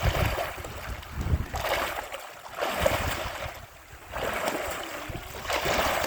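Water splashing and washing in repeated surges about every second and a half, with wind buffeting the microphone.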